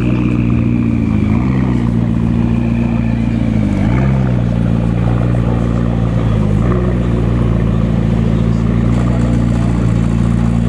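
McLaren MP4-12C's twin-turbo V8 running at low revs as the car rolls slowly past close by, its note dipping briefly and picking back up about three times.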